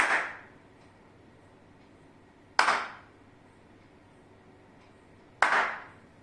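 Three single hand claps, each followed by a short decay, spaced roughly two and a half seconds apart, made to trigger a sound-sensor clap switch.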